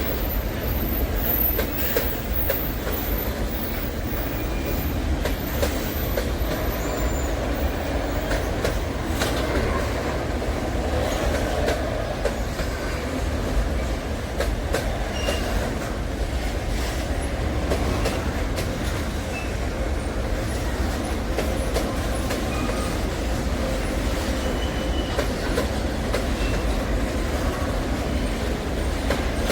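Long freight train's cars rolling steadily past, their wheels clacking with many irregular clicks over the rail, and occasional faint, brief wheel squeals.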